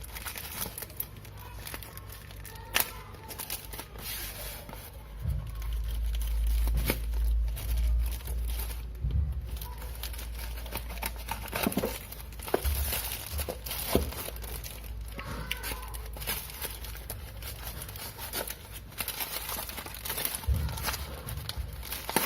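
The packaging of a string light being opened by hand: crinkling and tearing with scattered clicks, and a stretch of low rumbling handling noise from about five to ten seconds in.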